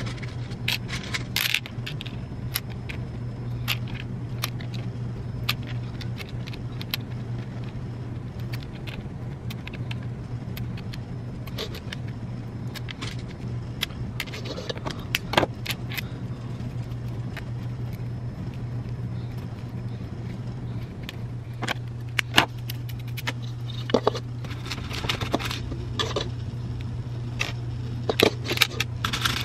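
Plastic pony beads clicking against each other and the clear plastic bead tray as they are picked up and threaded onto stretch cord: scattered sharp clicks that come in clusters, busiest near the end, over a steady low hum.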